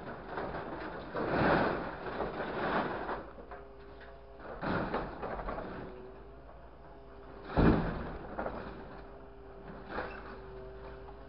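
Scrap grapple truck working its load: scrap sheet metal in the steel bed clattering and scraping in several bouts, the sharpest knock about two-thirds of the way through. A steady mechanical hum comes in after a few seconds underneath.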